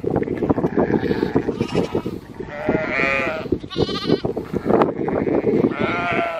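A flock of ewes and young lambs bleating: several calls, the loudest about three, four and six seconds in, one of them higher-pitched. Under them runs a dense patter of short clicks, hooves on the paved road as the flock crosses it.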